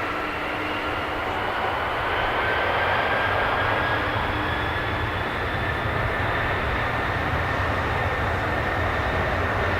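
Airbus A310-300 turbofan jet engines running with a steady roar, their whine slowly rising in pitch.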